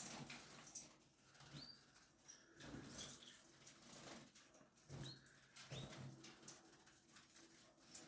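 Faint birds moving about: wings flapping and rustling in short spurts, with a few brief high chirps. A faint steady low hum sits underneath.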